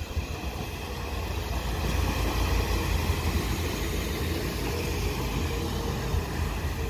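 Diesel multiple unit passenger train passing close by, its engine and wheels on the rails making a steady rumble that grows louder from about two seconds in.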